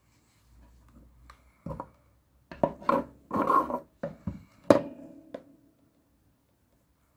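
Handling noise: a run of knocks, clicks and rubbing of hard objects, densest in the middle and stopping about five and a half seconds in.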